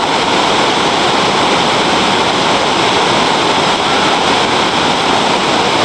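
Waterfall rushing, a loud steady roar of falling water.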